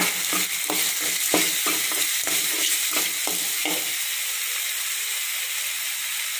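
Shallots, tomatoes, garlic and green chillies sizzling in ghee and oil in a metal kadai as they are sautéed. A steel ladle scrapes and knocks against the pan in quick strokes for the first few seconds, then only the steady sizzle goes on.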